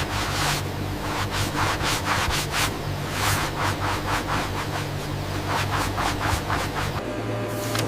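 Quick, repeated rubbing or scraping strokes over a steady low machine hum; the strokes stop about seven seconds in and the hum carries on.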